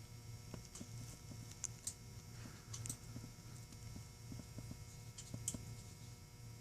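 Faint, irregular small clicks and taps of a Master Lock padlock's metal parts being handled and worked on, over a low steady hum.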